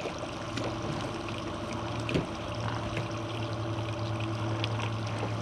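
Outboard motor running at trolling speed, a steady low hum that grows a little stronger about halfway through, with water noise around the hull. A light click about two seconds in.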